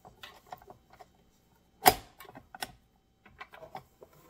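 Metal dough hook being pushed and twisted onto a KitchenAid stand mixer's beater shaft, making light clicks and clinks, with one sharp metallic click about two seconds in.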